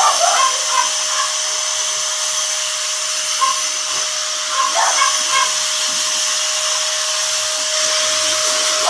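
Hose-type pet grooming blow dryer blasting air onto a wet dog's coat: a steady rushing hiss with a constant motor whine.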